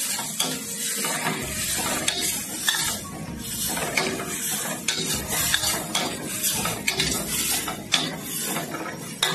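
Metal spatula scraping and knocking against a wok as chopped greens are stir-fried, with a steady sizzle of the frying underneath and frequent sharp scrapes and clicks.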